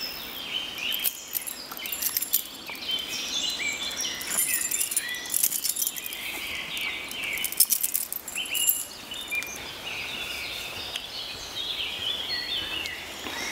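Several birds singing in short, repeated chirps, with a few brief bursts of high crackling noise.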